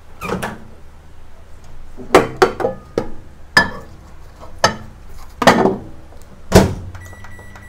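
A plate of food clinks and knocks as it is set inside a built-in microwave oven, and the door is opened and then shut with a knock, the loudest about a second before the end. Just after, the microwave's keypad gives a few short beeps as it is set to reheat.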